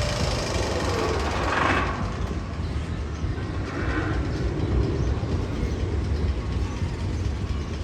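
Steel roller coaster train rumbling and clattering along its track, with a brief higher squeal about a second and a half in.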